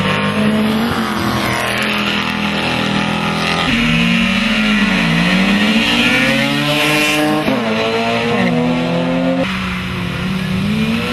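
Car engines revving hard, their pitch sweeping up and down over and over, with tyres squealing through burnouts and drag launches. The sound changes abruptly twice.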